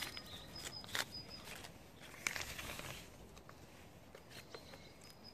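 Faint rustling and crinkling of a clear plastic sleeve being handled around a fresh cleft graft, with a few sharp clicks, the clearest about one second in and another a little after two seconds. A small bird repeats short high chirps faintly in the background.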